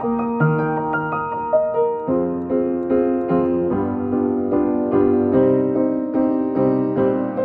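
Upright piano playing a solo hymn accompaniment. Melodic notes over held bass notes give way, about two seconds in, to repeated full chords at a steady pulse of about two to three a second.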